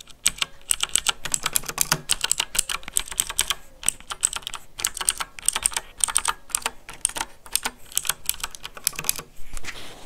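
Typing on a Zebronics Max Plus mechanical keyboard with Outemu blue switches, clicky copies of Cherry MX Blue: a fast run of sharp key clicks that pauses briefly near the end.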